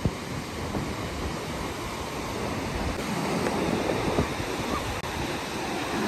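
Sea surf breaking and washing up over the sand as a steady rush, swelling louder about halfway through.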